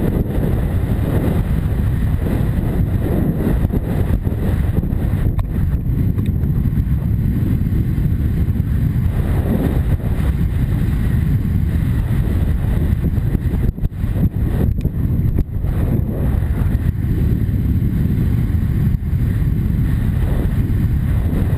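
Wind buffeting a helmet camera's microphone as a horse gallops cross-country: a loud, steady, low rumble, with a few brief drops in level a little past the middle.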